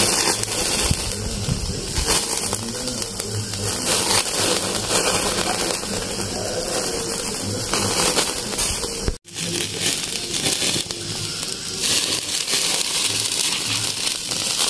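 Open wood fire crackling under a whole chicken on a wire grill, with fat dripping into the flames and sizzling. The sound drops out for an instant about two-thirds of the way through.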